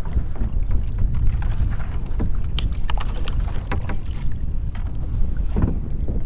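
Wind rumbling on the microphone over water moving around a kayak, with scattered short splashes and knocks.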